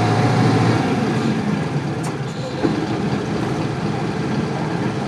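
Isuzu Cubic bus's 8PE1 diesel engine running. The engine note eases off about a second in, and there is a short click about two seconds in.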